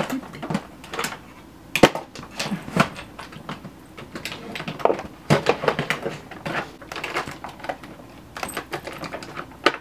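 Plastic lip gloss tubes clicking and clattering as they are rummaged through and picked up, in an irregular run of small clicks with a sharper knock about two seconds in and another near the end.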